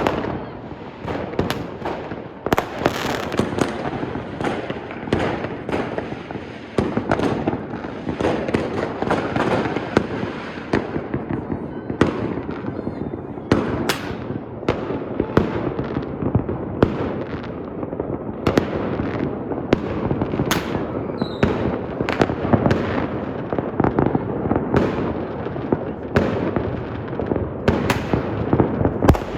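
A fireworks display: a dense, continuous crackle of many shells and firecrackers bursting, with frequent sharp cracks and bangs scattered throughout.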